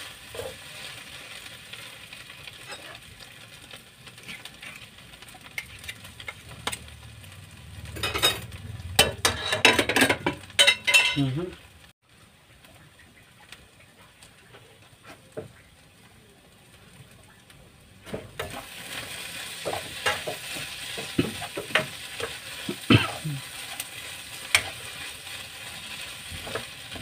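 Sardine sisig mixture frying in a nonstick pan, with a steady sizzle and a metal spatula scraping and stirring against the pan. A run of louder, quicker scraping comes about eight to eleven seconds in; then the sizzle drops away for about six seconds before the frying and stirring return.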